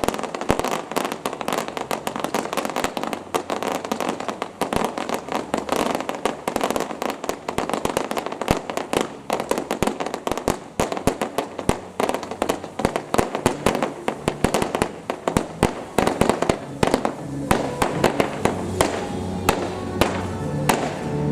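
Fireworks going off in a dense, rapid string of sharp bangs and crackles that thins out to scattered bangs near the end.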